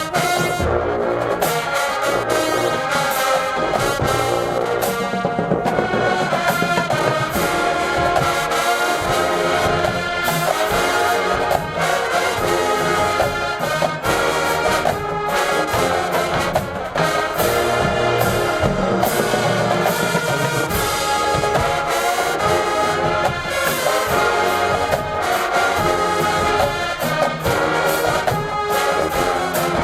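HBCU-style marching band playing loud, full brass, trombones and trumpets to the fore, over a steady beat of drum hits.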